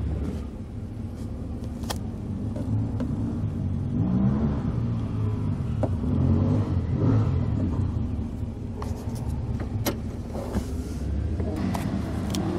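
A vehicle engine runs steadily, and partway through an engine revs up and down. A few sharp clicks come over it.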